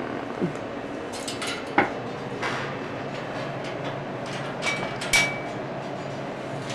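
Metal wire birdcage bars clinking and rattling as a Moluccan cockatoo climbs them with its beak and feet. A handful of sharp clicks and clinks, the loudest about two seconds in and another near five seconds with a brief metallic ring.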